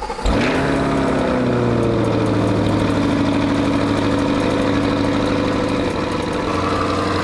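C8 Corvette's V8 catching at the end of the starter cranking, about a quarter second in. It flares up in revs, falls back over a second or two and settles into a steady fast idle.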